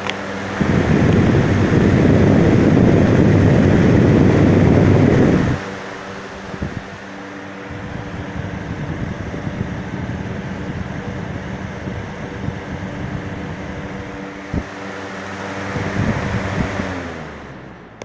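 Electric box fan running: a steady motor hum under a rush of air from the spinning blades, with a much louder gusting rush for the first five seconds or so. Near the end the hum drops in pitch and the sound fades as the fan winds down.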